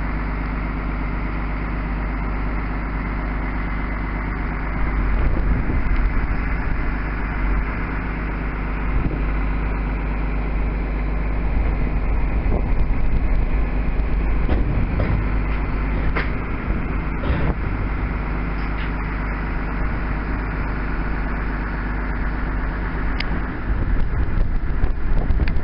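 Crane lorry's diesel engine running steadily to power the Hiab crane, with a few swells in level.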